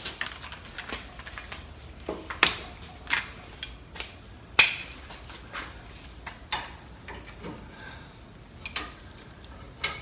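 Irregular sharp metallic clinks of a breaker bar and socket being worked onto the front brake caliper bracket bolts, about seven over several seconds with the loudest about halfway through.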